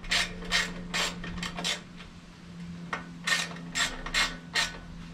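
Hand ratchet clicking in short repeated swings as a bolt is run into a threaded hole to mount a catch can bracket, with a pause of about a second midway.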